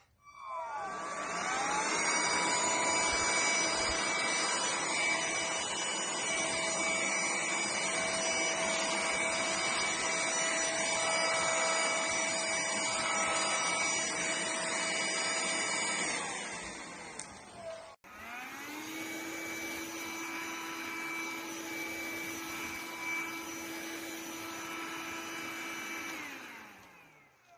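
Cordless stick vacuum cleaner's motor spinning up with a rising whine and running steadily, then winding down and stopping. It starts again, running quieter with a different, lower tone, and winds down near the end.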